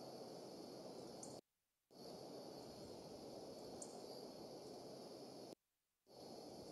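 Near silence: the steady hiss of an outdoor nest-cam microphone, with a faint steady high-pitched drone and a couple of faint high ticks. The sound cuts out completely twice for about half a second, once at about a second and a half in and again near the end.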